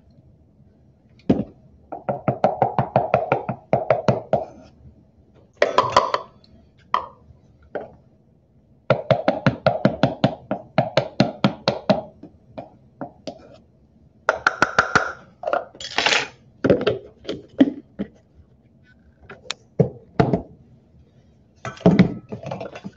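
Measuring cups scooping, levelling and tipping flour into a stainless steel mixing bowl: several runs of quick light taps and scrapes a second or two long, with single knocks between them. Near the end, the plastic flour container's lid is knocked into place.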